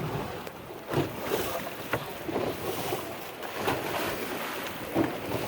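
Wind buffeting the microphone over water sloshing and slapping against a boat's hull, with a few louder slaps.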